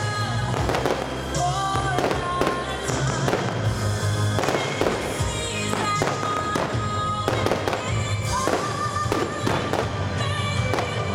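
Aerial firework shells going off in rapid bangs and crackles throughout, over music played for the display.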